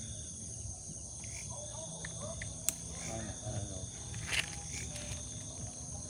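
Steady night chorus of crickets and other insects, a thin high trilling with no pause. A single sharp click about the middle and a brief rustle of grass being handled about four seconds in.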